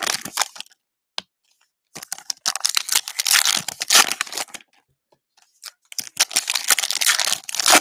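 Foil trading-card pack wrapper being torn open and crinkled by hand, in three stretches of rustling with short quiet gaps between them.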